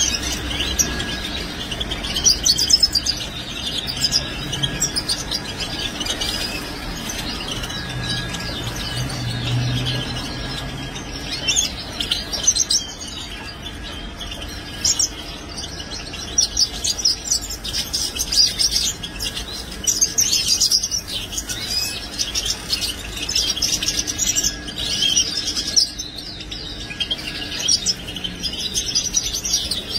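European goldfinch hens in a wire cage calling: short, high chirps and twitters scattered throughout, some in quick runs.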